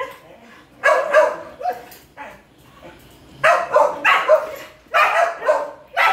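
Dogs barking in quick runs of two to four barks with short pauses between. This is territorial barking at an intruding palm civet.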